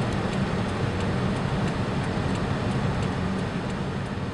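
Steady rushing of a heavy thunderstorm downpour, rain and storm water running down the street into the drains, with a low rumbling undertone.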